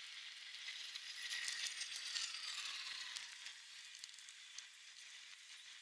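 Faint crackling hiss of transfer paper being peeled off a vinyl decal on a plastic kayak hull, loudest in the middle.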